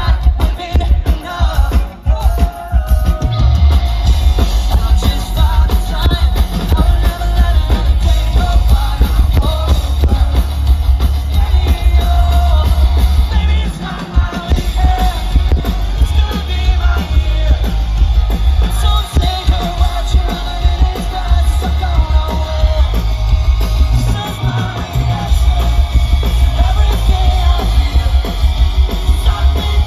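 Live pop-punk rock band playing loudly through the PA: electric guitars, bass and drum kit, with a lead vocal over them. The bass and drums drop out briefly about halfway through, then come back in.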